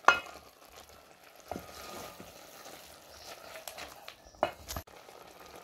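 Wooden spoon stirring meat, tomatoes and pumpkin leaves in an aluminium pot, knocking against the pot a few times, the sharpest knock right at the start. Faint sizzling from the pot runs underneath.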